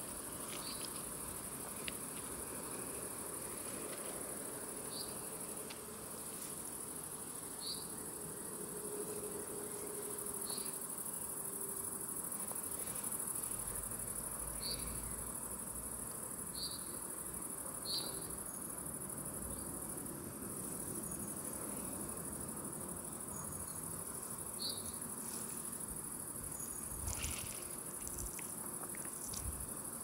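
A chorus of crickets trilling continuously at a high pitch, with short bird chirps now and then.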